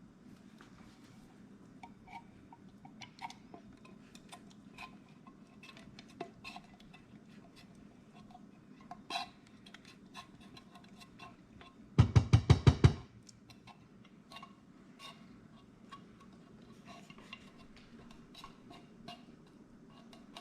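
Light clinks and scrapes of a spoon and kitchenware as condensed soup is spooned out over a roast, with a quick run of about seven loud knocks about twelve seconds in.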